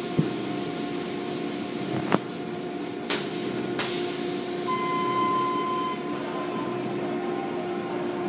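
Automatic tunnel car wash running: a steady machinery hum with a high hiss of spraying water, broken by a few sharp knocks and a thin steady tone about five seconds in.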